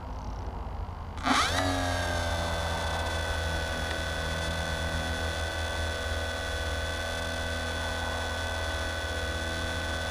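Finwing Penguin's brushless electric motor and pusher propeller spinning up about a second in, the whine rising sharply, then holding at a steady pitch.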